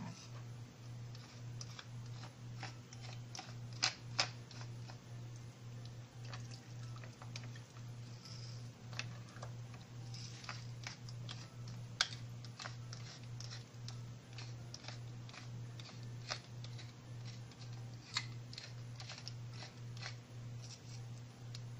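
Wooden pepper mill grinding peppercorns: a run of irregular small crunching clicks as the top is twisted, over a steady low hum.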